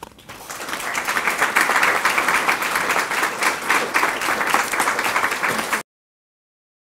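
Audience applauding: the clapping builds over the first second, holds steady, then cuts off suddenly near the end.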